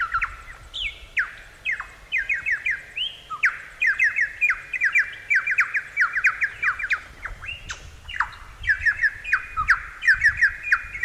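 Superb lyrebird singing: quick runs of sharp, downward-sweeping whistled notes, with short breaks between runs.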